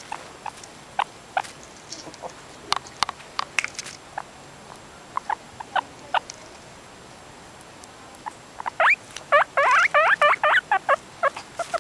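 Guinea pig squeaking: scattered short squeaks, then a quick run of louder squeaks in the last three seconds.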